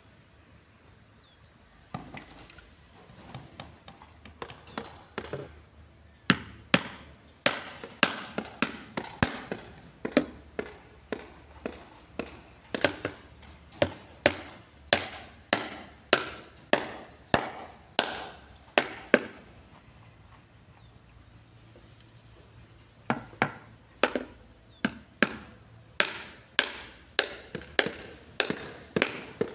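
Hand hammer blows struck in a steady rhythm, about two a second. The first few are light taps, then the blows are sharp and ringing, and they stop for a few seconds midway before resuming.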